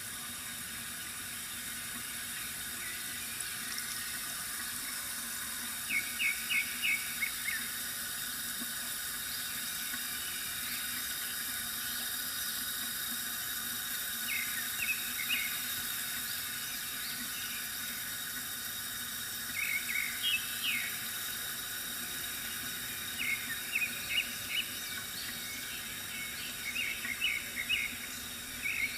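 Bamboo water fountain trickling steadily, with small birds chirping in quick runs of short notes every several seconds.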